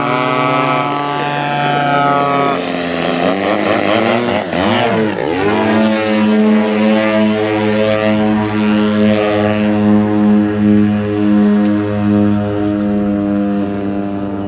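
Two giant-scale radio-controlled Extra NG aerobatic planes flying together, their engines and 27x11 propellers droning. For a few seconds early on the pitch bends and sweeps up and down as they manoeuvre and pass, then it settles into a steady drone.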